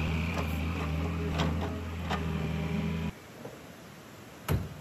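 Excavator diesel engine idling steadily with a few light clicks, stopping abruptly about three seconds in. Near the end comes a single sharp knock from the excavator's cab door.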